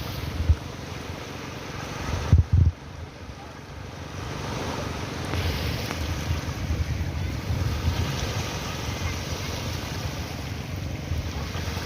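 Sea waves washing and swelling, with wind buffeting the microphone in low thumps that are loudest about two and a half seconds in.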